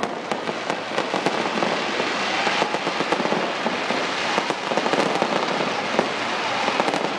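Fireworks going off continuously: a dense crackle of many small rapid bangs, with one sharper bang about six seconds in.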